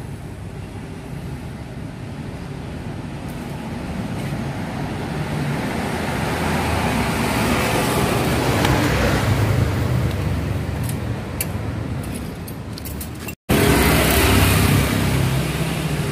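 Road traffic noise, with a vehicle engine rumble that swells toward the middle and fades again. It breaks off for an instant about 13 seconds in, then comes back louder.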